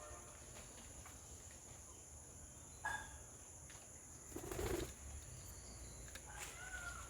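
Birds in a garden over a steady high-pitched drone: a short call about three seconds in, then a brief loud flutter of wings or rustle a second and a half later, and more pitched calls near the end.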